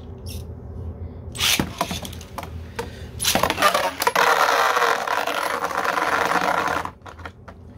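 3D-printed Beyblade spinning tops launched into a plastic stadium, clattering and grinding against each other and the floor. A short rasping burst comes about a second and a half in. A loud, steady rattling spin follows for about three and a half seconds and cuts off suddenly.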